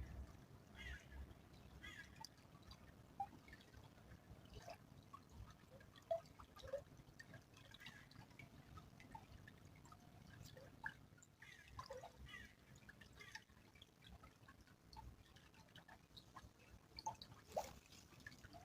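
Small stream trickling faintly, with irregular drips and plinks of water.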